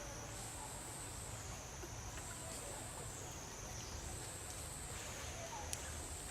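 Insects droning in a high continuous chorus that rises and falls in pitch about every two seconds.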